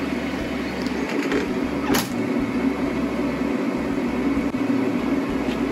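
Kei truck's engine running, heard inside the cab as a steady drone with cabin noise, and a single sharp click about two seconds in.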